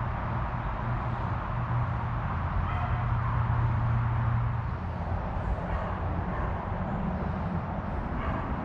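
A steady low mechanical hum, like an engine or motor running, a little louder about three to four seconds in.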